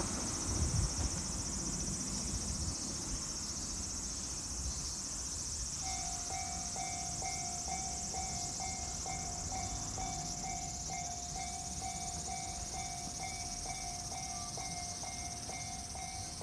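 Electronic warning bell of a Japanese railway level crossing, of the Tōjō type, starts about six seconds in. It rings a steady, even 'kan-kan' at a little under three strikes a second.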